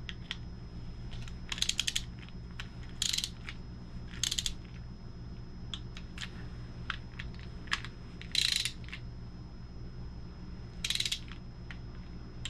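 Socket ratchet clicking in five short runs of rapid clicks, with scattered single ticks between, as bolts on a VR6 engine's timing-chain components are run down and torqued to spec.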